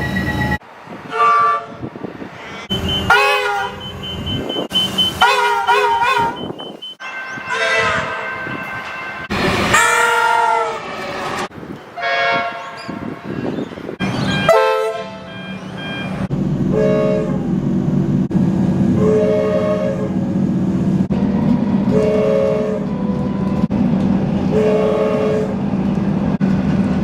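Comeng electric suburban train horns sounding in a rapid string of separate recordings, several of the blasts bending in pitch. In the second half, short horn toots repeat about every two and a half seconds over the steady hum of a running train.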